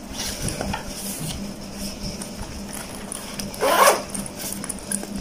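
Handling a Daiwa sling bag: fabric and straps rustling as its zip compartments are worked, with one short louder zip or rasp about three and a half seconds in.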